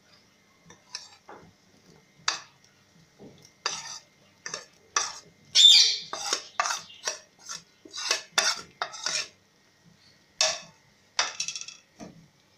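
A steel ladle scraping and clinking against a plate and a steel pot as crumbled khoya is pushed into thick kheer: a run of short, irregular clinks and scrapes, the loudest about six seconds in.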